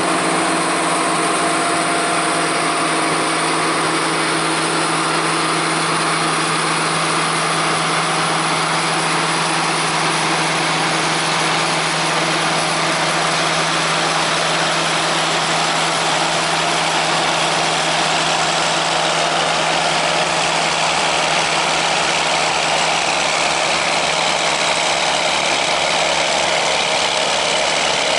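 Heavy diesel farm machinery running steadily: a constant engine hum under a loud, even hiss of machine noise.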